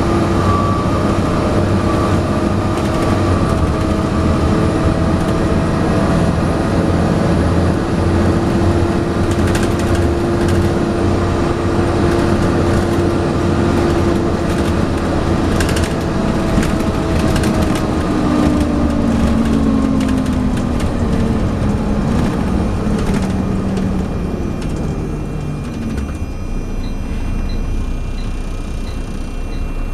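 Volvo B7TL double-decker bus heard from inside under way, its engine and driveline running with a steady high whine, the 'hoover' sound. About two-thirds of the way through, the whine and engine note fall steadily in pitch as the bus slows. Body rattles come through in the middle, and a light regular ticking starts near the end.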